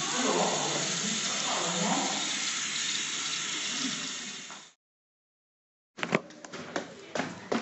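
Water running from a tap into a washbasin, a steady rush that cuts off suddenly about four and a half seconds in. After a second of silence, footsteps on a staircase begin, sharp separate steps a few times a second.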